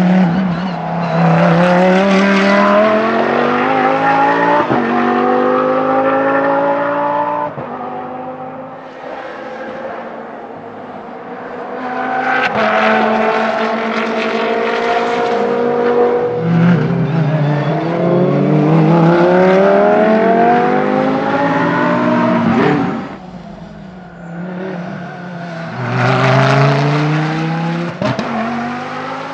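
Audi R8 LMS Ultra GT3 race cars' V10 engines accelerating hard on track, pitch rising through each gear and dropping at each upshift, over several separate runs.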